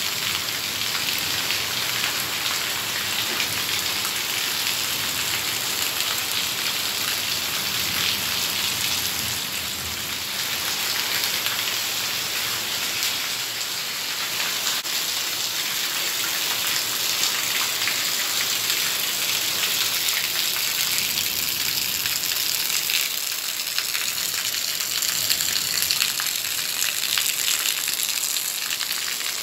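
Heavy monsoon rain pouring steadily, a dense hiss of drops spattering on a wet terrace floor.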